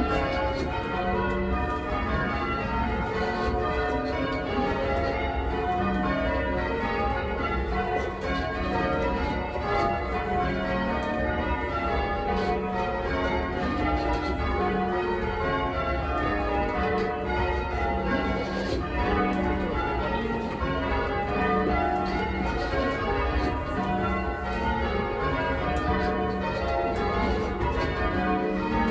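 A ring of eight church bells, a 14 cwt ring tuned to F# and cast mostly by Taylor's, rung full-circle in change ringing. The strikes follow one another in a steady, unbroken sequence, each bell's tone ringing on under the next.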